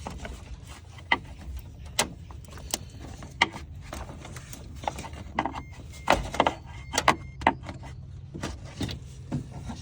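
Irregular sharp clicks and knocks of hands and a tool prying plastic wire-loom clips off a car's radiator cooling fan, with the loudest cluster a little past the middle, over a steady low hum.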